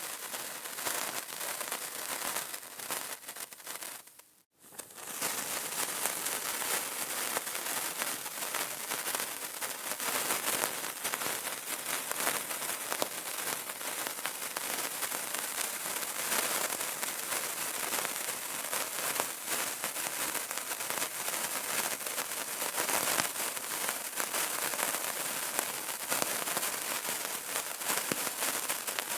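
Burning candle crackling: a dense, steady run of tiny pops and snaps. The crackle fades out briefly about four seconds in and comes straight back.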